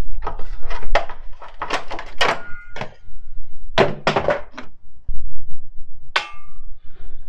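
Irregular knocks and clunks of metal parts being handled in a car's engine bay, a few with a short metallic ring.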